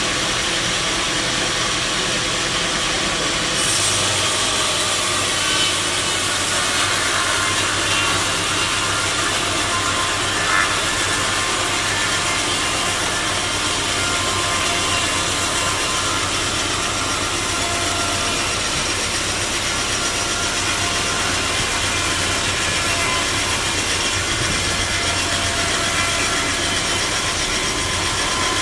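Powered sawmill saw cutting through a log: a continuous loud rasping saw noise with a steady machine hum that joins about four seconds in.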